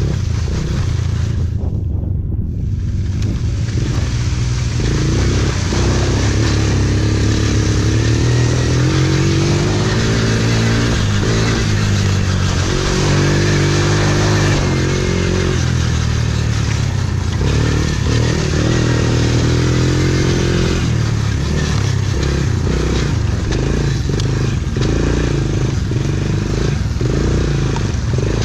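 Small youth racing quad's 90cc-class engine running hard on a cross-country course, its pitch repeatedly rising and falling as the throttle is worked and gears change.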